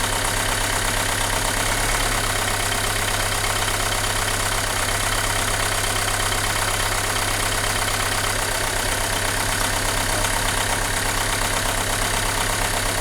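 Renault Mégane II engine idling steadily. The engine has a fault that makes it vibrate, shake and lack power.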